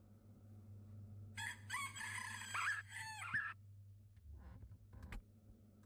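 A rooster crowing once, a call of about two seconds that rises, holds and falls, over a low steady hum.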